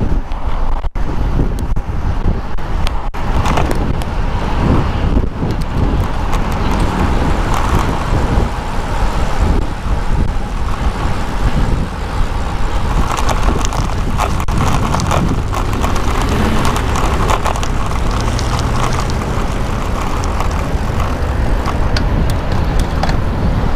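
Road traffic noise with motor vehicles going by, over a steady rumble of wind on the microphone.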